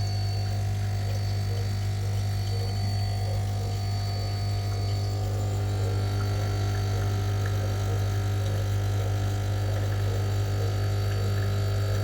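De'Longhi espresso machine's pump running steadily with a loud, even hum, pushing plain water through with no coffee in it.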